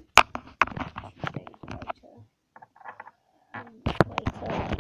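Handling noise on the device's microphone: a run of irregular clicks and knocks as fingers tap and rub against it, with a brief rustling near the end.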